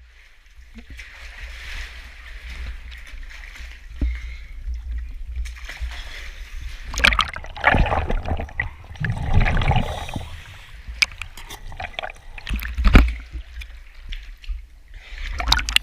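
Water splashing and sloshing irregularly as a caver moves through a cave stream, with sharp knocks in among it and a low rumble underneath; the splashing is heaviest from about seven to ten seconds in and again around thirteen seconds.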